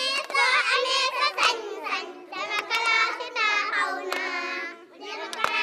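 A group of young girls singing together in high voices, with a few sharp hand claps, one pair coming near the end.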